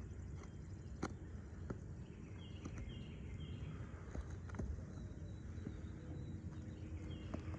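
Faint outdoor ambience with a few short falling bird chirps, a run of them about two and a half seconds in and another near the end, plus occasional light clicks or taps over a low steady rumble.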